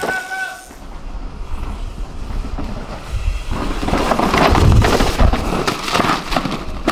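An enduro mountain bike passing at speed on a dirt trail: tyres rolling and skidding over dirt and rocks, with chain and frame rattle. It swells a little after halfway and is loudest for the next couple of seconds.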